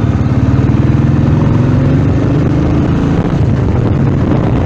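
Motorcycle engine running steadily, its fast regular firing picked up close by an earphone's inline microphone.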